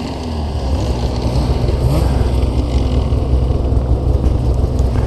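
Snowmobile engine running under throttle, a loud steady drone that builds slightly in the first second.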